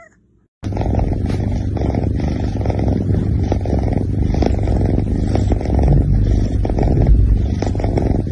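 A cat purring loudly, a dense low rumble that cuts in abruptly about half a second in and then runs on steadily.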